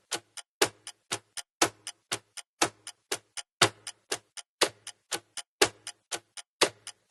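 Clock-ticking sound effect used as a quiz countdown timer: sharp, even ticks about four times a second, with a louder tick once each second.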